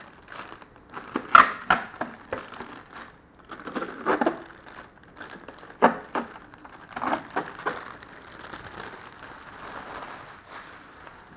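Clear plastic wrapping crinkling and rustling as it is handled and pulled off an espresso machine, with irregular sharp crackles and a few knocks, the loudest about a second and a half in. Over the last few seconds it settles into a softer, steady rustle.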